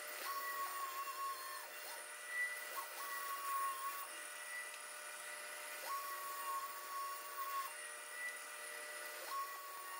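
Pegas scroll band saw running while a thin plywood cutout is fed into its narrow blade. A high whine comes in four times, for a second or two each, as the blade cuts.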